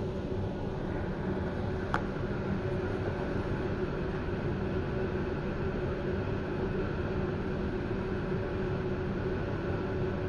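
Steady hum inside a passenger train carriage standing still, with no wheel or rail noise, and a single sharp click about two seconds in.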